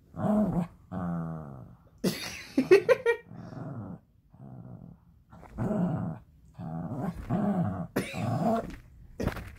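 Dog play-growling in repeated short bursts while tugging on a rope toy, with a few sharper, higher yelps about two to three seconds in.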